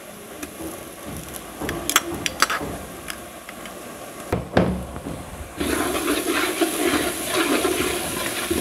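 Ginger-garlic paste being spooned into hot oil in a large aluminium pot, with a few clicks of the spoon against the glass bowl, then, from a little past halfway, frying sizzle and scraping as the paste is stirred in the oil with a spatula.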